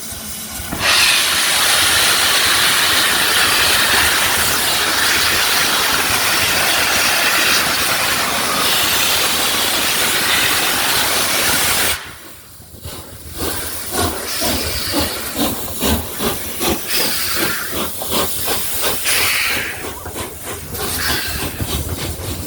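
Three-cylinder A1 Pacific steam locomotive 60163 Tornado pulling away. A long, loud hiss of steam starts about a second in and cuts off suddenly about twelve seconds in. After a short lull come regular chuffs of exhaust, with a further brief hiss among them.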